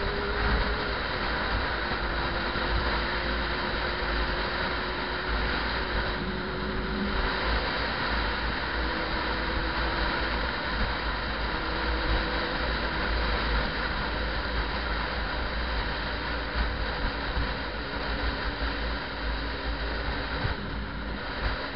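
Yamaha R6 sport bike cruising at steady road speed: wind rushing over the microphone with a heavy low rumble, and the inline-four engine's drone faintly underneath, shifting a little in pitch.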